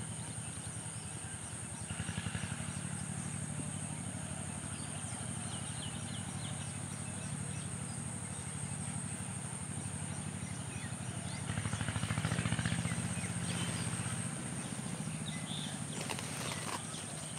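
An engine running steadily with a low, pulsing hum that swells briefly about two seconds in and again for a couple of seconds near the middle, over a constant high-pitched hiss and a few scattered chirps.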